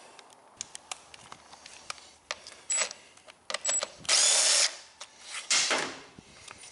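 Power drill running in several short bursts, the longest about half a second near the middle, with light clicks of tool handling before them, as fasteners are backed out during teardown of a lawn mower.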